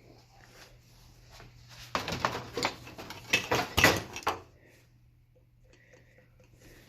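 Clattering and clinking of hard objects being handled, likely tools or parts during a car repair. It comes as a dense run of sharp knocks lasting about two seconds in the middle, with a low steady hum underneath.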